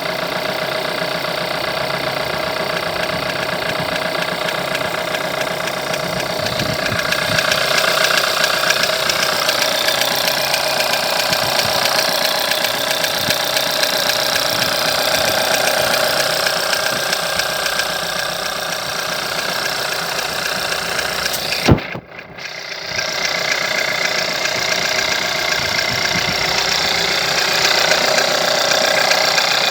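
Turbocharged four-cylinder 1.4 TSI petrol engine running steadily with a knocking sound, on an engine with over 170,000 km whose timing chain has recently been replaced. A single sharp click about 22 seconds in, with a brief drop in the sound just after it.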